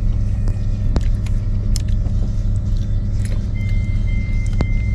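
Steady low rumble of a high-speed passenger train running, heard from inside the carriage, with a few small clicks. From about three-quarters of the way in, a row of short, evenly spaced high beeps joins it.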